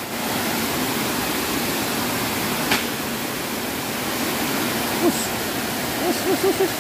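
Steady rush of water pouring over a small weir into a river pool. A sharp click comes about a third of the way in, and near the end there are a few short pitched sounds, four of them in quick succession.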